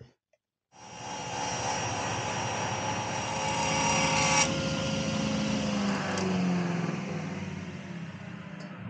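A woodworking power machine running steadily while working walnut. It cuts in suddenly less than a second in, and its high-pitched edge drops away about halfway through.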